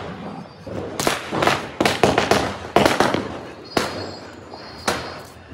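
Firecrackers going off in an irregular run of about eight sharp bangs, each with a short echoing tail, the loudest about three seconds in.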